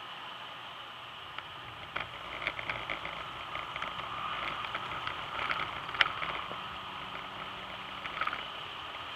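BMW 125i E88 convertible driven roof-down on a wet track, heard from inside the open cabin: steady rushing wind and tyre-on-water noise, with scattered crackles of spray, loudest about six seconds in. The engine is only faint underneath.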